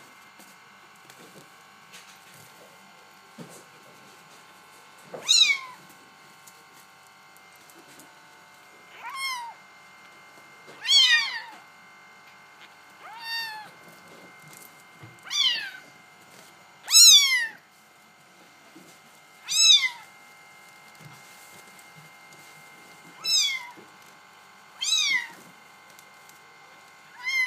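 Bengal kitten mewing over and over: about ten short, high-pitched mews, each falling in pitch, coming roughly every two seconds from a few seconds in.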